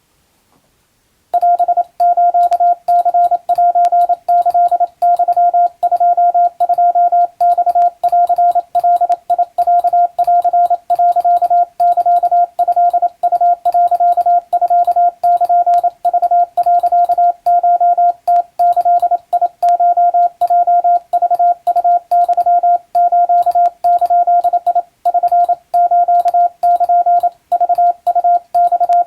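Wabun (Japanese) Morse code: a single steady beep tone keyed on and off in rapid dots and dashes, sending a practice telegram. It starts about a second in and keeps going without a break.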